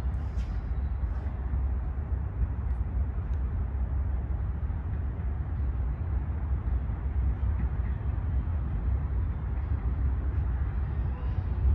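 Steady low rumble and hiss of background noise on an open-air elevated subway platform, with no train passing.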